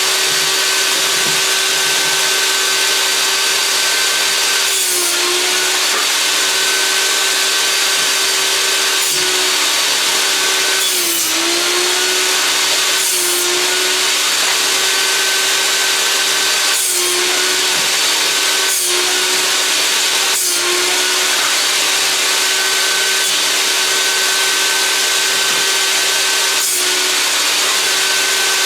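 Einhell table saw running steadily with a constant whine while its blade cuts old boards into firewood pieces. The motor's pitch dips briefly about eight times, once with each cut as the blade takes the load, then recovers.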